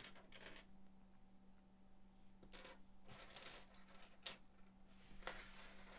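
Loose plastic Lego bricks and plates clicking and clattering faintly against each other as fingers rummage through a pile, searching for a piece; a handful of separate light clicks.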